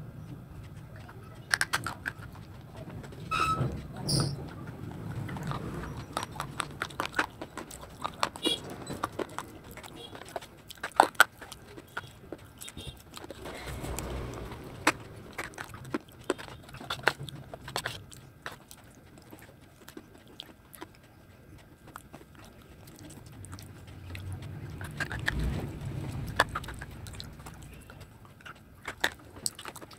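Close-up eating sounds: a person biting into and chewing hard, brittle pieces, with irregular sharp cracks and crunches between softer stretches of chewing.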